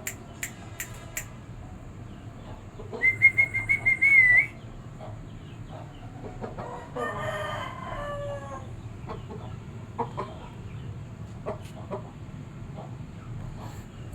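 Aseel rooster crowing once, a call under two seconds long that drops in pitch at the end, about seven seconds in. Before it, a loud, high, warbling whistle lasts about a second and a half, and there are a few sharp clicks at the start.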